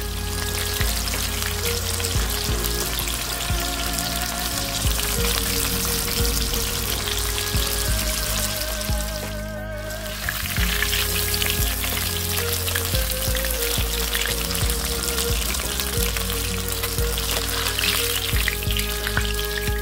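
Battered shrimp deep-frying in hot oil in a wok: a steady sizzle that drops away briefly about halfway through, over background music.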